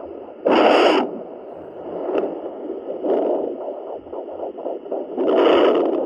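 Handheld fetal Doppler's speaker giving out the whooshing, pulsing sound of heartbeats picked up through a pregnant Labrador's belly. Louder scraping rushes about half a second in and again near the end come from the probe moving over gelled fur.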